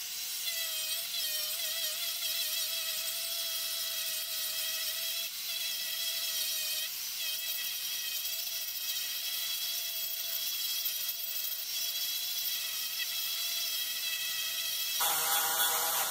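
Handheld rotary tool spinning a small sanding drum against a wooden intarsia branch piece, removing wood. It makes a steady high whine that wavers slightly in pitch in the first couple of seconds as the drum is pressed into the wood.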